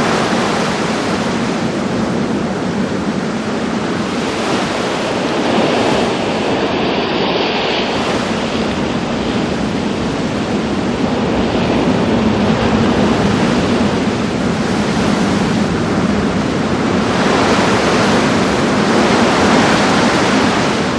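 Rough sea: waves and surf washing steadily, swelling a little now and then, with wind buffeting the microphone.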